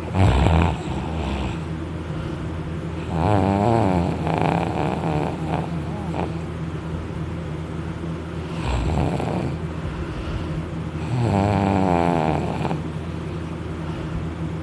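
A person snoring loudly in deep sleep after drinking, lying on their back. There are four snores a few seconds apart, about one inhale-and-exhale cycle each, over a steady low hum.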